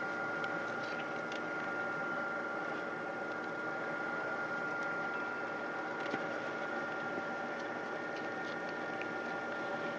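A small fan motor running steadily: an even hum with a constant high whine, with a few faint clicks of handling.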